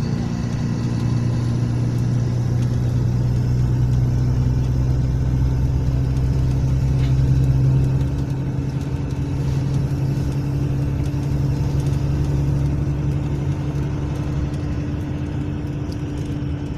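Mercedes-Benz O500 RSD coach's rear-mounted straight-six diesel engine running steadily with a deep, even hum, easing slightly about eight seconds in.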